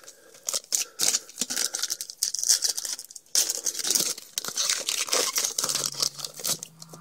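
Foil wrapper of a Topps baseball card pack crinkling and tearing as it is ripped open: a busy run of sharp crackles and rips, loudest in the middle and toward the end.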